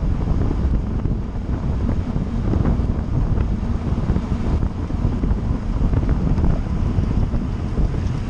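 Steady wind noise buffeting the microphone of a bike-mounted camera as the road bicycle rides at race speed.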